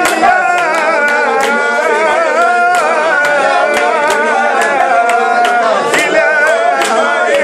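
A man singing live, a long wavering melismatic chant, over sharp percussive strokes coming about two or three times a second.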